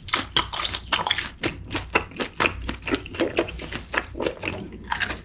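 A person chewing and biting food close to the microphone: wet smacking mouth sounds and crisp clicks, several a second, with no steady rhythm.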